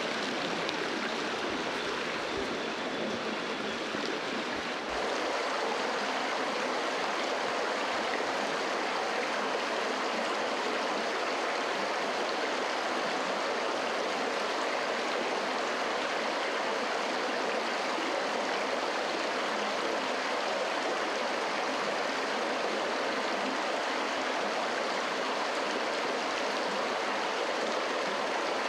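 A creek running steadily: a constant rush of flowing water that gets slightly louder about five seconds in.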